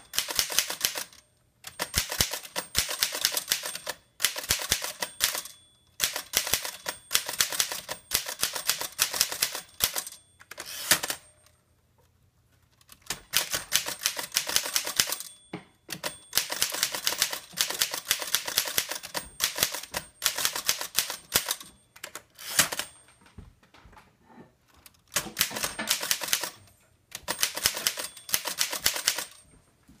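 1930s Underwood portable manual typewriter being typed on: rapid clacking keystrokes in runs of one to two seconds, with brief pauses between them and a sparser, quieter stretch past the middle.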